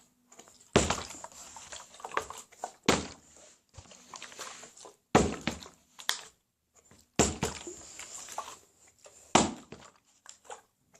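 A plastic bottle being flipped and landing with a thunk five times, about every two seconds, each landing followed by a brief clatter: failed bottle-flip attempts, the bottle not staying upright.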